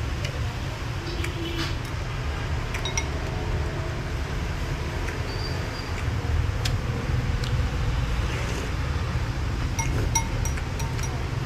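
A metal spoon and chopsticks clinking now and then against a ceramic soup bowl, short chinks with a brief ring, several of them close together near the end, over a steady low rumble.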